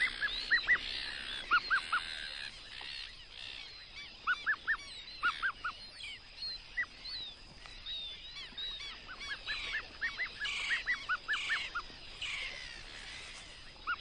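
A colony of brown-hooded gulls calling: many short, overlapping calls, some coming in quick runs of three or four.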